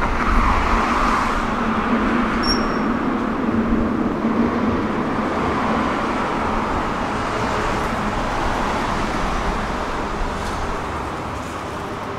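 Passing vehicle noise: a loud, even rushing that swells at the start and then slowly fades away.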